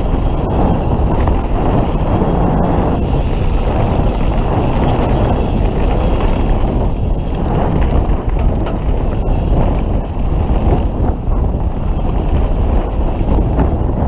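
Steady wind rush on the microphone mixed with the rumble of knobby tyres and the rattle of a Canyon Spectral full-suspension mountain bike riding fast down a dirt singletrack, with a few faint clicks and knocks.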